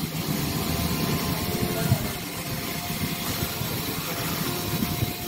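An engine running steadily, with men's voices talking over it and a single sharp click about two seconds in.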